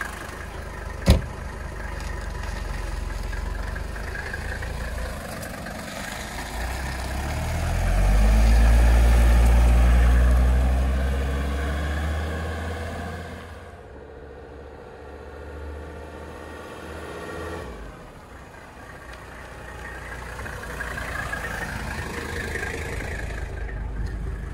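Mercedes-Benz W123 300TD's five-cylinder turbodiesel pulling away, the engine note climbing in pitch as it accelerates, then fading as the wagon drives off. Near the end the engine grows louder again as the car comes back. One sharp click about a second in.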